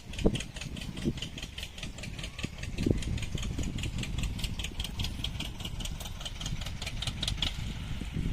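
An engine running steadily, with a fast even clatter of about five ticks a second over a low rumble.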